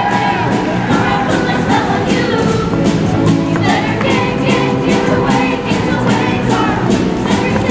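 Show choir singing over a loud backing track with a steady beat.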